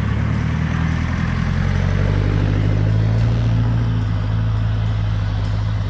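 Land Rover Defender 110's engine pulling steadily under load as it climbs a snow-covered track and passes close by, a strong low engine note that swells slightly midway.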